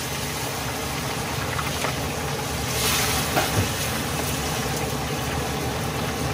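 A large whole fish deep-frying in a wok of hot oil: steady loud sizzling and bubbling, a little louder about three seconds in, over the low roar of a gas burner on high flame.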